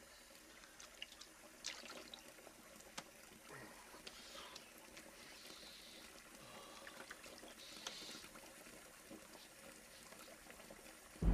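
Faint water splashing and trickling in a bathroom sink as cupped hands scoop water and splash it onto a face, with scattered small splashes and drips.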